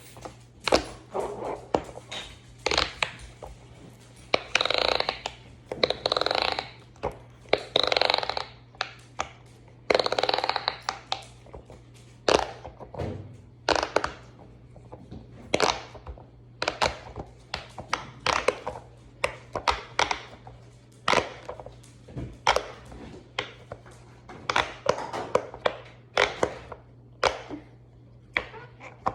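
Large silicone pop-it fidget toy being pressed bubble by bubble: a long run of irregular pops, a few a second, over a low steady hum.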